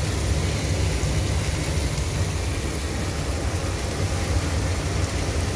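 Steady low rumble with an even hiss under it, the constant machinery and ventilation noise of a working kitchen.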